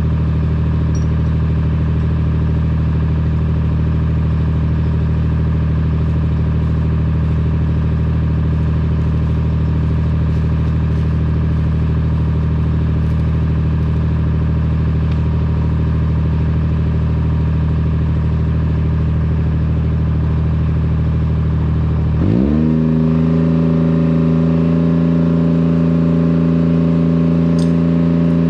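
A vehicle engine running steadily at a constant speed, then revving up sharply about 22 seconds in and holding at the higher pitch.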